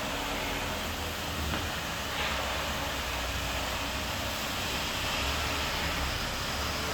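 Hanyang HY-9 wet parking-lot cleaning machine running with a steady hiss over a low hum.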